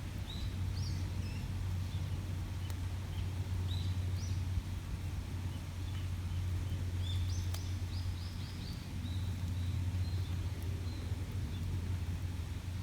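Small birds chirping in short calls, with a quick series of chirps about seven to nine seconds in, over a steady low rumble of outdoor background noise. A few sharp ticks are also heard.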